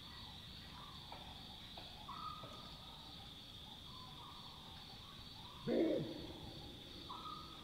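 A chacma baboon gives one loud, short bark near the end, over a steady pulsing chorus of night insects and fainter calls in the distance.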